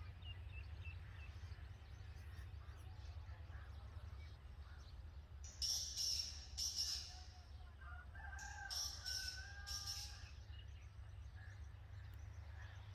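High, raspy calls from red-vented bulbul nestlings, coming in two bouts about six and nine seconds in, over a steady low hum.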